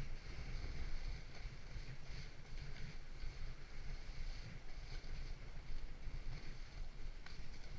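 Wind buffeting the microphone in a steady rumble over the hiss of a Hogsbak sled sliding downhill on snow.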